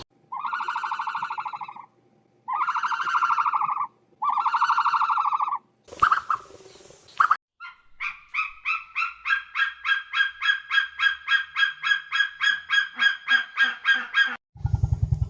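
Farm fowl calling: three long, buzzy honking calls, then, after a short noisy burst, a fast run of sharp calls at about four a second that goes on for some six seconds.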